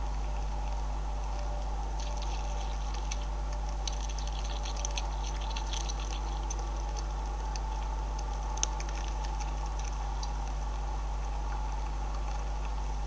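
Beavers chewing and crunching scattered feed kernels close to the microphone: quick irregular clicks and crackles from about two seconds in until about ten seconds, with one sharper click past the middle. A steady low electrical hum runs underneath.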